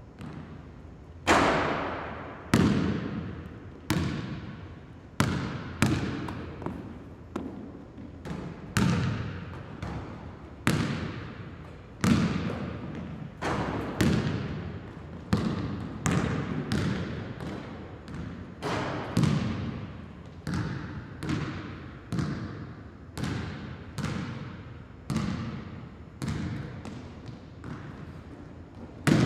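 A basketball bouncing on a hard floor, one bounce about every second or so at an uneven pace, each with a ringing echo that dies away.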